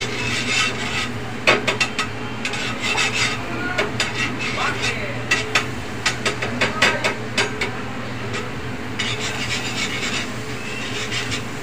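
Metal spatula and tongs scraping and clinking against a frying pan on a gas stove, in irregular strokes, over a steady low hum.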